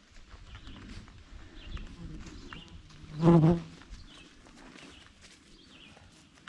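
Small birds chirping in the surrounding woods, a string of short high chirps. About three seconds in comes a single short pitched sound lasting about half a second, the loudest thing heard.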